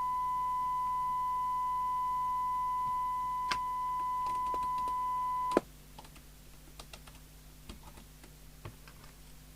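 A steady test tone from the CB radio's loudspeaker cuts off abruptly with a click about five and a half seconds in, as the squelch closes while its preset is adjusted. Faint small clicks and ticks follow.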